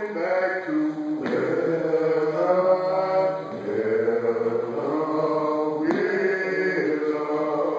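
Group of men singing a menhaden fishermen's shanty (work song) together in long, drawn-out, chant-like notes.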